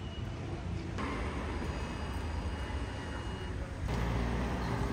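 City street traffic noise: a steady low rumble of cars. It changes abruptly about a second in and again near the end.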